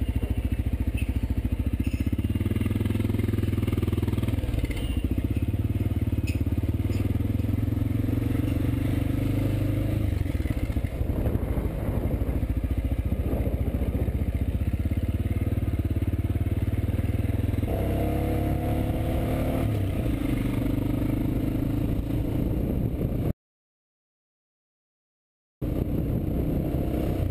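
Honda XR650L's single-cylinder four-stroke engine running steadily under way, its note shifting a few times. The sound cuts out completely for about two seconds near the end, then the engine is heard again.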